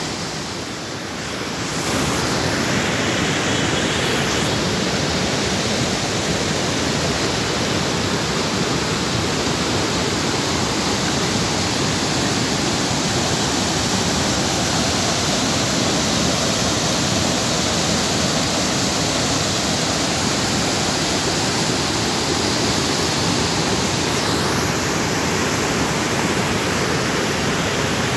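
Floodwater of the swollen Godavari River rushing and churning, a loud steady roar of water that is slightly quieter for the first couple of seconds.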